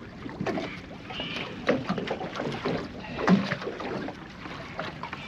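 Irregular knocks, rustles and scrapes of a flathead being handled and untangled from a landing net and fishing line aboard a kayak.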